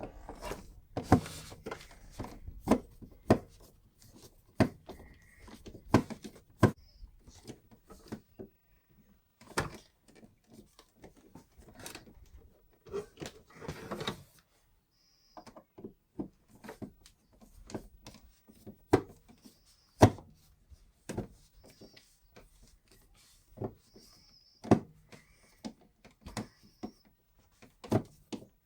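Irregular clicks and knocks of a hand screwdriver working a receptacle's mounting screw against its metal strap and the electrical box, the screw failing to bite because the old screw in the box had broken.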